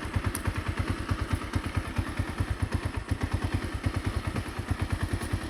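A small engine idling steadily, with an even low putter of about eight pulses a second.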